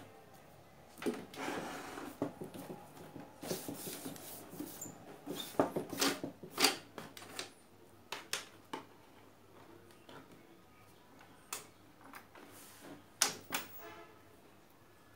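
Irregular knocks and clicks with light rustling between them: objects being handled, with a cluster of sharper knocks around the middle and another near the end.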